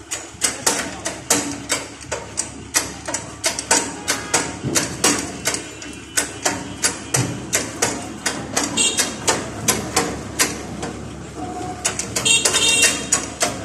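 Steady hammering on metal, sharp knocks evenly spaced at about three a second.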